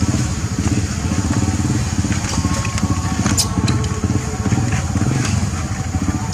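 An engine running steadily nearby, a low rumble with a rapid even pulse, with a few faint clicks over it.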